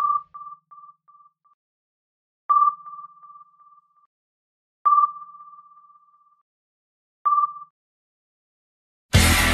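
Sonar-style ping sound effect: four single-pitched pings about two and a half seconds apart, each trailing off in fading echoes, with silence between. Loud rock music starts just before the end.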